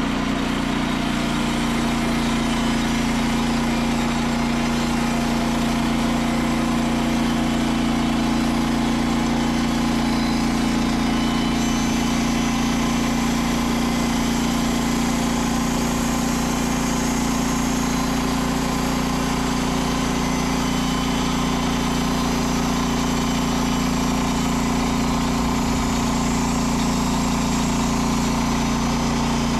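Frontier OS27 portable band sawmill's small petrol engine running steadily at a constant pitch. About twelve seconds in, a higher hiss joins it.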